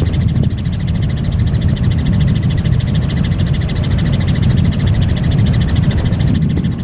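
Tour helicopter in flight: a steady, loud low rotor thrum with a fast pulse and a high, steady turbine whine over it.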